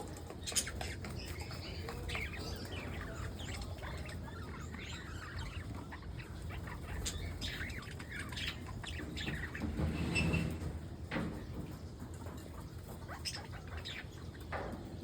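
Many small aviary birds chirping and twittering over one another, with a louder burst of calls about ten seconds in, over a steady low hum.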